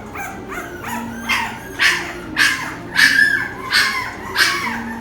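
Two-week-old American Bully puppy crying in a string of high yelps, each falling in pitch, about two a second, louder from about two seconds in.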